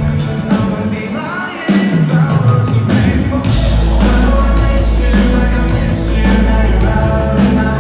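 Live pop-rock band playing with a lead singer. The band gets louder a little under two seconds in, and a heavy bass note holds from about the middle until near the end.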